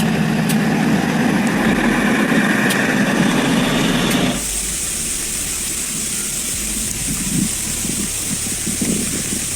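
A steady engine-like hum with a stack of even tones, which cuts off about four seconds in and gives way to a steady high hiss over a low rumble.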